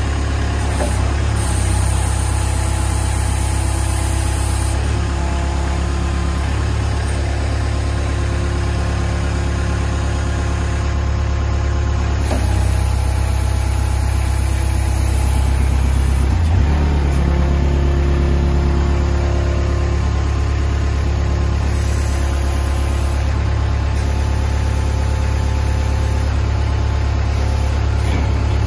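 Kubota loader's diesel engine running steadily while the loader arm is worked through its travel on the hydraulics. The engine note shifts a few times as the hydraulics take load, showing the rebuilt arm pins and bosses moving freely.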